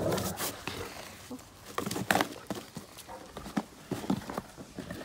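Great Danes pawing at and chewing a cardboard shipping box: irregular cardboard scrapes, crinkles and knocks, with the dogs' footfalls on grass.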